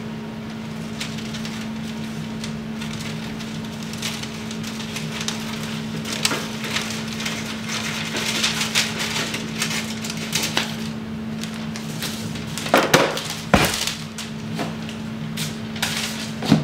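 Parchment paper crinkling and rustling as it is cut to size with scissors and handled, with a few sharper knocks about 13 seconds in and near the end. A steady low hum runs underneath.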